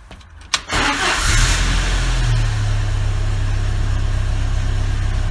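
Jeep Wrangler YJ engine starting: a click about half a second in, a noisy burst as it catches, then a steady idle.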